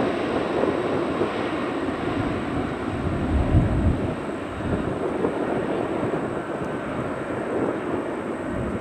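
Airliner's jet engines, a broad rushing roar slowly fading as the plane moves away, with a brief low rumble about three and a half seconds in.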